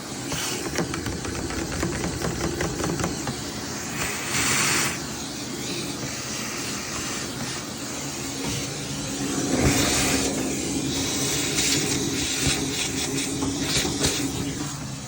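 Mechanical running with continuous rattling and clicking, and bursts of rushing, hissing air about four seconds in and again around ten seconds.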